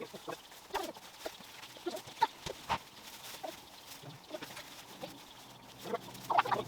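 Farm animals calling over scattered short knocks and clicks, with a longer pitched call near the end.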